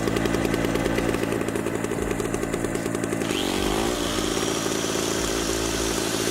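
Norton PGi1100 inverter generator's 69 cc single-cylinder two-stroke engine running steadily. Its pitch briefly dips and recovers a little over three seconds in.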